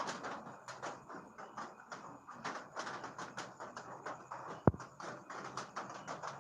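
Rain falling, heard as many irregular taps of drops over a steady hiss, with one sharp, much louder click about two-thirds of the way through.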